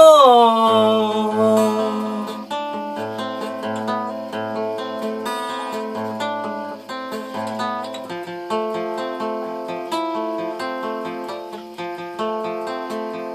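Acoustic guitar picked one note at a time in a steady, repeating pattern without singing. Over the first second a held sung note slides down and fades.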